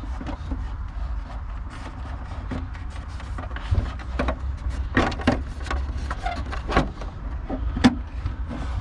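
Scattered knocks and clunks as the RC car is handled and set down inside a car, the strongest about four, five, seven and eight seconds in, over a steady low rumble.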